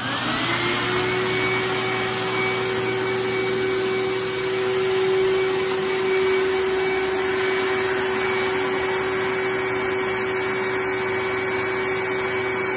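Small electric blower-vacuum motor switching on and spinning up, its pitch rising for about half a second, then running steadily with a high whine.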